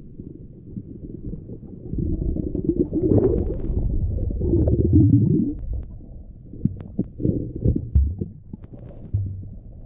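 Muffled underwater rumble picked up by a GoPro camera held under water while snorkeling, swelling louder from about two seconds in until about five and a half seconds, with a few sharp clicks near the end.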